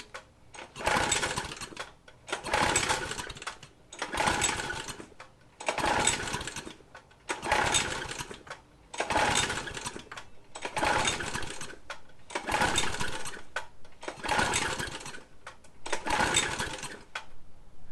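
Briggs & Stratton engine on a McLane reel mower running rough just after starting, its sound surging up and dropping back in an even rhythm about every second and a half, as an engine does when it hunts on a dirty fuel system being cleaned out.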